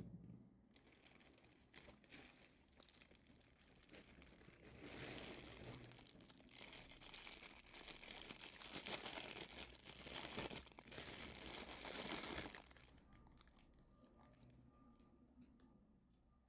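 Thin clear plastic bag crinkling and rustling as a hair massage brush is handled and unwrapped from it, loudest for several seconds in the middle and then fading. A single sharp click at the very start.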